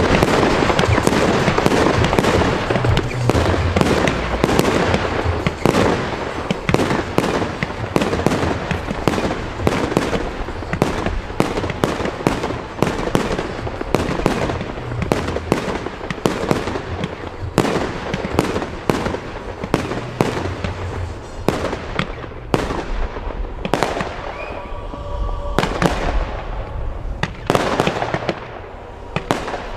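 Fireworks going off in a rapid, nearly continuous barrage: many sharp launch shots and star bursts a second, with crackling. The barrage thins a little near the end.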